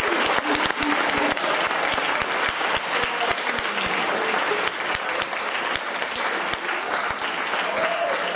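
Audience applauding: many hands clapping steadily, with a few voices mixed in.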